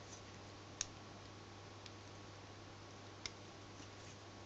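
A few faint, sharp clicks of small metal and plastic parts as a microwave-turntable synchronous motor's coil is worked loose from its metal housing by hand, three clicks spread over a few seconds. A low steady hum runs underneath.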